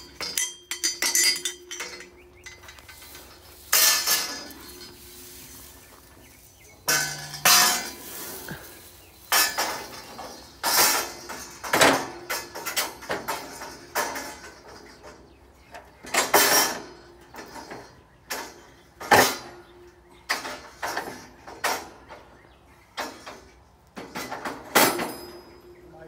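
Steel scaffolding frames and pipes clanking and clinking against each other, irregular sharp metal knocks that sometimes ring on briefly, as a frame section is hauled up on a rope and set onto the scaffold.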